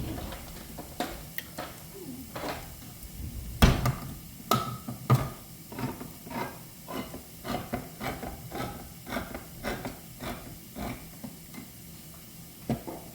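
Kitchen clatter: a run of clicks and knocks from utensils and cookware, the loudest knock about four seconds in, then fairly even taps at about two a second.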